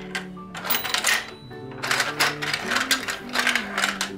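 Rapid, uneven plastic clicking and rattling from a toy train track playset worked by hand, starting about half a second in, over background music.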